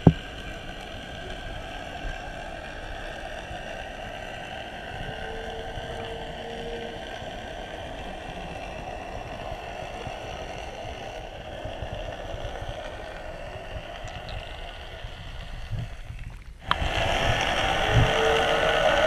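Underwater ambience: a steady drone with a faint held tone, jumping abruptly louder about three-quarters of the way through.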